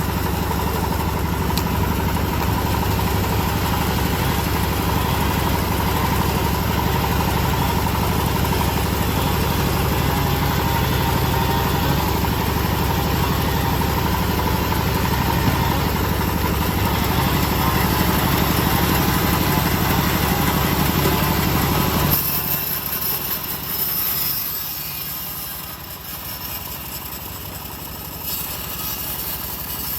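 Engine of a homemade bandsaw mill running steadily with a constant drone. About three-quarters of the way through, the low engine hum drops away abruptly and the sound gets quieter, leaving a thinner higher-pitched noise.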